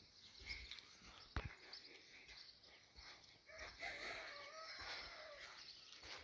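A rooster crowing faintly once, a drawn-out call of about two seconds past the middle. A single sharp click about a second and a half in.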